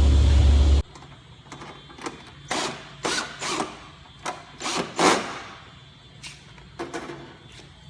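Power drill running, then cutting off abruptly about a second in. This is followed by a series of light clicks and knocks of metal parts being handled.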